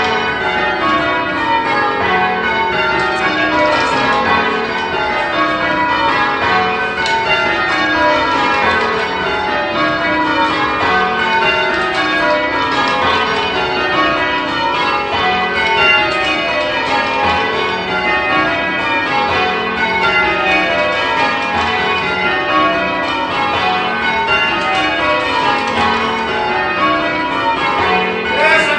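Church tower bells being rung full-circle by a band pulling the ropes, in a change-ringing sequence. The bells strike one after another in repeating rows that step down in pitch from the highest bell to the lowest.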